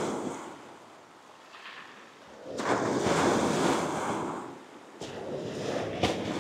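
Waves breaking on a shingle beach. One surges in sharply about two and a half seconds in and fades over a couple of seconds, and another builds near the end.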